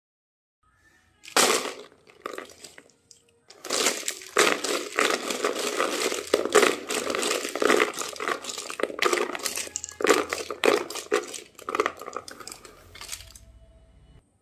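Plastic felt-tip marker pens clattering against each other and the paper as a handful is tipped out and pushed around: a brief rattle about a second in, then a dense run of clicks and knocks that stops shortly before the end.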